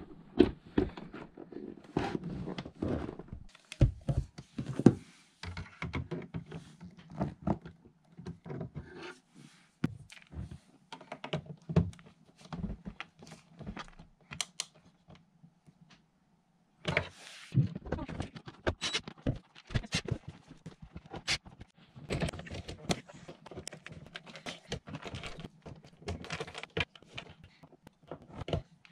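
Hands working on electrical wiring: a run of irregular clicks, taps and knocks as bundled cables and plastic connectors are handled and a ground wire is fed through a power distribution panel, with a hand screwdriver tightening screws at the panel front. A short silent break comes about halfway through.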